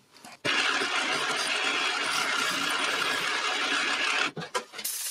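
A mill-drill running a 5.5 mm twist drill into a metal bar, opening a hole for a screw head: a steady drilling noise that starts suddenly about half a second in and stops a little after four seconds, followed by a few light clicks.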